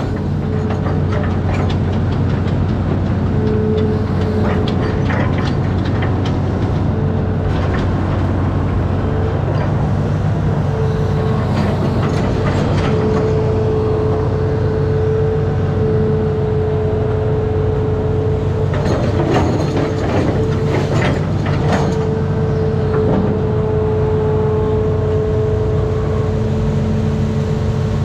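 Amphibious excavator's diesel engine running steadily under load, heard from the cab, with a hydraulic whine that comes and goes as the boom and bucket work. A cluster of clanks and rattles comes about two-thirds of the way through.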